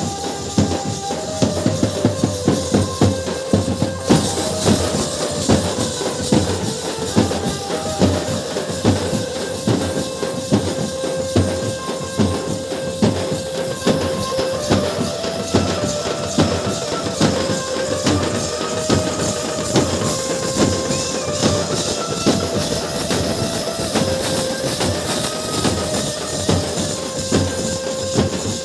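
Loud Indian baraat procession music: fast, dense drumming with jingling percussion under a melody that holds one note and steps up and down around it.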